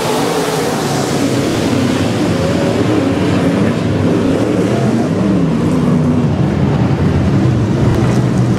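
Engines of several dirt-track modified race cars running hard around the oval, their pitch rising and falling as they accelerate down the straights and lift for the turns.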